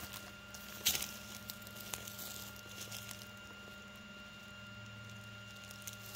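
Traxxas TRX-6 RC crawler creeping slowly, its electric drive giving a faint steady hum, with sparse small crackles of gravel and dry leaves and a sharp click about a second in.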